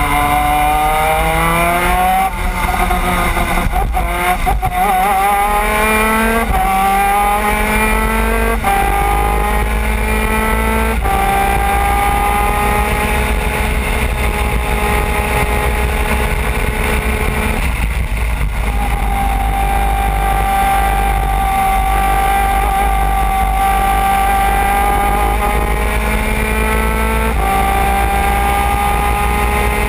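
PVP two-stroke superkart engine heard onboard at racing speed, its pitch climbing and dropping back at upshifts about 2, 4, 6, 9 and 11 seconds in, then held high at full throttle. The revs dip briefly about 18 seconds in and it shifts up once more near the end.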